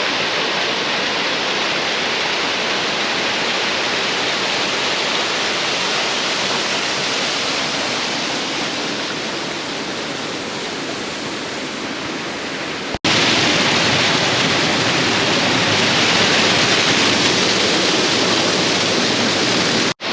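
Waterfall rushing: a continuous, steady roar of falling water. Near the middle it cuts off for an instant and comes back a little louder.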